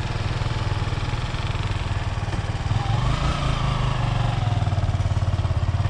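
Small motorcycle engine running steadily as the bike rides off, a pulsing low drone.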